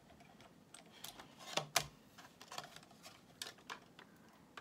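Scattered small plastic clicks and taps as a 1/24-scale Axial SCX-24 rock crawler's chassis and steering servo are handled, with two louder knocks close together a little under two seconds in.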